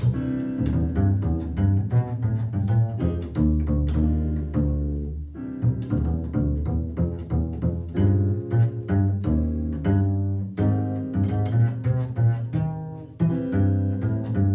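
Instrumental jazz with a plucked double bass to the fore, playing a quick run of short notes.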